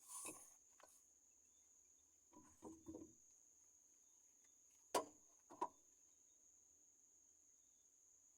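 Near silence broken by a few faint clicks and knocks of hand work on car parts: a small cluster about two and a half seconds in, then a sharp click about five seconds in and a softer one just after. A faint steady high whine runs underneath.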